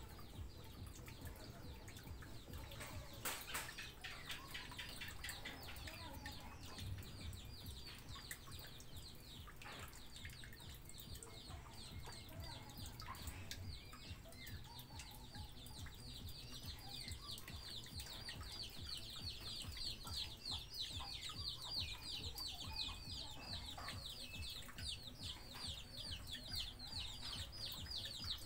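Background bird chirping: a rapid series of short, high, falling chirps that become denser and almost continuous in the second half. A steady low rumble runs underneath, and there is one sharp click about three seconds in.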